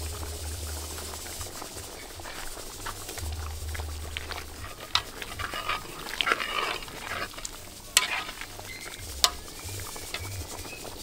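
A spoon stirring a pot of brown stew pork that sizzles and bubbles, with a few sharp metal knocks of the spoon against the pot, the loudest about eight seconds in.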